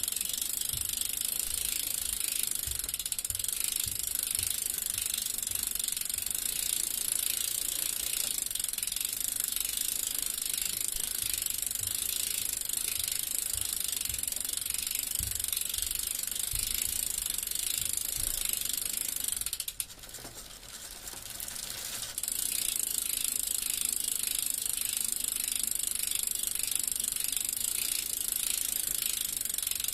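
Bicycle freewheel clicking rapidly and steadily, its pawls ticking over the ratchet as the rear wheel turns. The ticking stops for about two seconds about twenty seconds in, then resumes.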